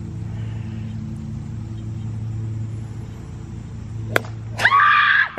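A golf cart idles with a steady hum. About four seconds in, a single sharp crack comes as the club strikes an exploding prank golf ball and it bursts, followed at once by a woman's loud shriek.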